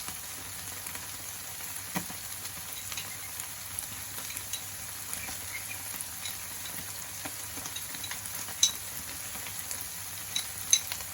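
Tofu and egg frying in a pot: a steady sizzling hiss with small scattered pops, a knock about two seconds in, and a few sharp clicks in the last few seconds.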